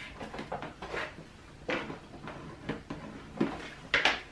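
Paper being bent over a ruler and creased on a tabletop: a string of soft rustles and light knocks from the paper, ruler and marker, with a sharper knock near the end.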